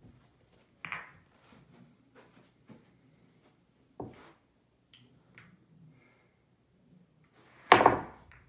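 A few separate knocks: one about a second in, a sharp one about four seconds in, and a louder, longer thump near the end, with faint small clicks between them.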